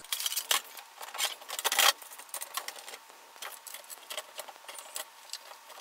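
Steel load-center cover being handled and fitted onto the panel: scattered light metallic clicks and rattles, with a short louder rattle a little under two seconds in.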